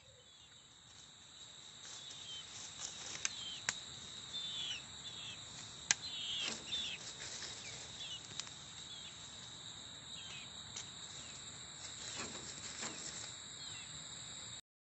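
Steady high-pitched droning of insects, with short chirps scattered through it, mostly in the middle, and a few sharp clicks.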